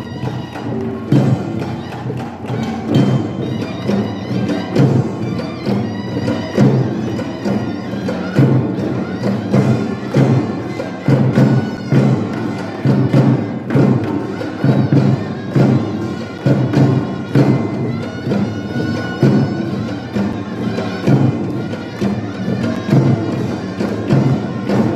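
Korean folk percussion music (pungmul) accompanying a sogo drum dance: drums beating a steady, driving rhythm, with a melody line over it.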